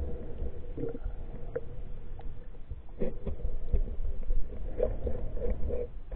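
Muffled underwater rumble of flowing river water picked up through a submerged camera, with scattered gurgles and a few faint clicks.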